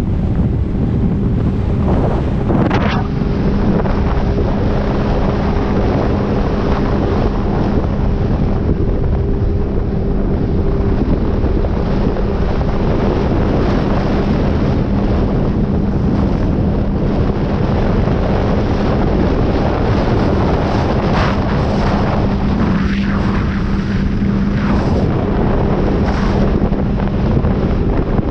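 Jet ski engine running at a steady speed, a constant hum, with heavy wind noise on the microphone and water rushing past.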